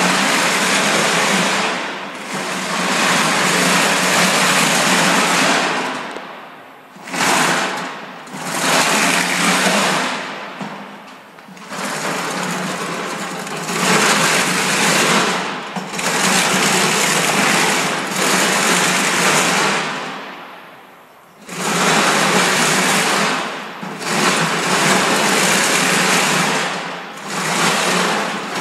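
Homemade tracked robot crawler's drive running with a loud, fast mechanical whir as it moves on its tracks, dying down and surging back up several times as it stops and starts.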